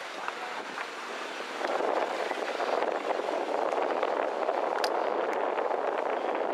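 Wind gusting across the microphone as a steady rush that grows louder about a second and a half in, with a few faint footfalls on the railway sleepers.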